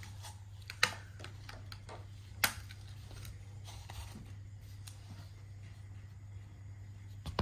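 Scissors snipping plastic tags off new dog toys, with packaging handled: scattered small clicks, two sharper snips about one and two and a half seconds in, over a low steady hum.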